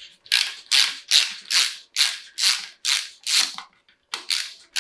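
A ratchet wrench being worked back and forth on a bolt of a BMW M50B25 engine, its pawl clicking in quick, even strokes about two and a half a second, with a brief pause shortly before the end.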